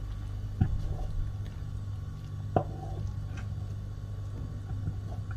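A wooden spoon stirring thick, simmering milky payasam in a metal pan, with wet squishing and bubbling and two sharp taps, one about half a second in and a louder one about two and a half seconds in. A steady low hum runs underneath.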